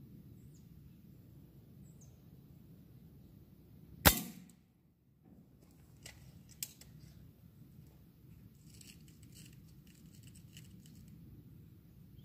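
A single shot from a Crosman F4 air rifle fitted with a silencer, about four seconds in: one sharp crack with a short ring-off as the pellet punches through an empty spray can. A couple of light clicks follow about two seconds later.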